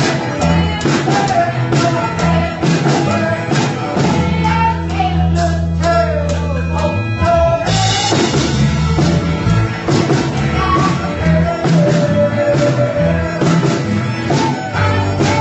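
A band playing a rock song with a lead singer, the vocal melody running over the band, and a low bass note held for a few seconds in the middle.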